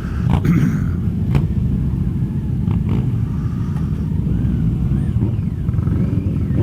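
Motorcycle and maxi-scooter engines idling together in a steady low rumble, with a few sharp clicks in the first three seconds.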